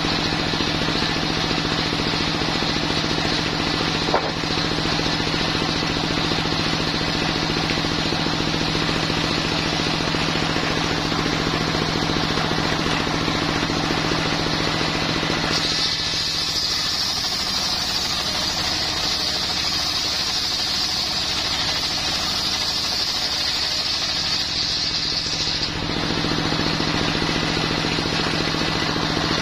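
Homemade circular saw bench driven by a stationary engine, running steadily as the blade rips coconut wood into boards. From about 16 to 26 seconds the sound changes, with a high steady whine rising over the engine, and there is one sharp knock about 4 seconds in.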